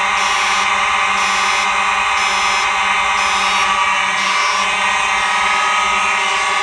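Simplex fire alarm horns sounding steadily during a system test: a loud, unbroken horn tone with many overtones. A fainter high-pitched part pulses on and off about once a second.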